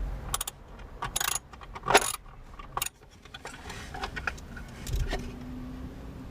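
Light metallic clicks and clinks, a few sharp ones in the first three seconds then quieter handling, as bolts are worked loose from a car's ECU housing.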